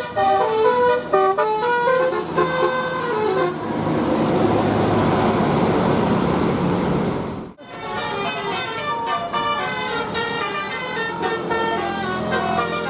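Indonesian Basuri telolet bus horns, multi-note musical horns, playing quick stepping melodies of several notes. For a few seconds in the middle the tune gives way to loud, even noise. After a sudden short break, the horn melodies start again, with several notes sounding at once.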